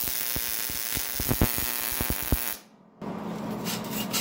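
Welding arc crackling and hissing with sharp irregular pops as two steel pieces are tack-welded, cutting off abruptly about two and a half seconds in. After a brief silence, a softer rubbing sound of a hand sliding along a bandsaw blade.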